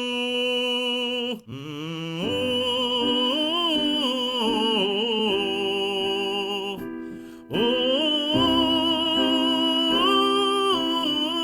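A voice singing a song's melody on a sustained 'oo' vowel instead of words, a vocal exercise for keeping a forward, hummed resonance placement rather than singing from the throat. It opens on a held note, then runs through two phrases with a short breath about seven seconds in.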